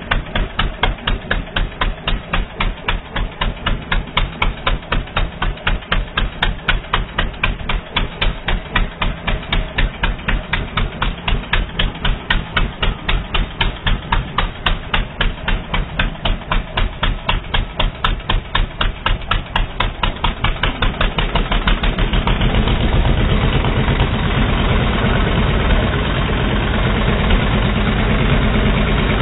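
ATV engine idling slowly, each firing stroke a distinct putt a few times a second, the beat quickening gradually; about twenty-two seconds in it picks up to a faster, smoother run.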